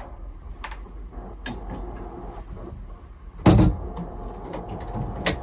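Hinged galley worktop lid over the stove and sink being lowered and shut, landing with one loud thump about three and a half seconds in, with a few lighter clicks and knocks around it.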